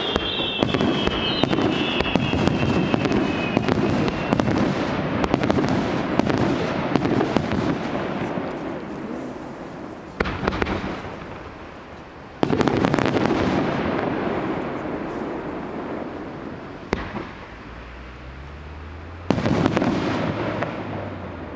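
Fireworks going off: dense crackling with loud bursts that each fade over a few seconds, fresh volleys starting about ten, twelve and nineteen seconds in. A few falling whistles sound in the first few seconds.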